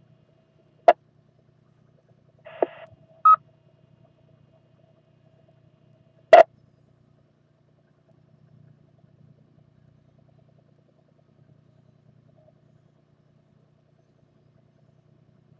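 Amateur radio receiver on a 2-metre FM repeater between check-ins: two sharp clicks, about a second in and about six seconds in, a brief rush of squelch noise at about two and a half seconds, and a short beep just after it, over a faint steady hum.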